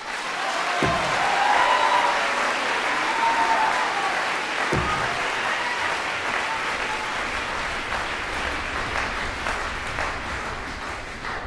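Concert hall audience applauding steadily, the applause slowly dying down near the end.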